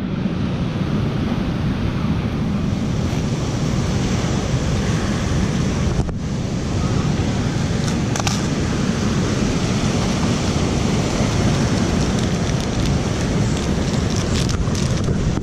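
Surf breaking on a rocky shore and wind buffeting the microphone as a steady, heavy rush, with a few short clicks and rustles from handling a plastic box and a snack wrapper, most of them near the end.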